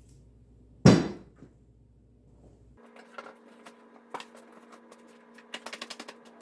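Chunks of scrap wood being handled on a workbench: one heavy knock about a second in as a piece is set down, then a string of lighter knocks and clatter, quick near the end, as pieces are shifted about.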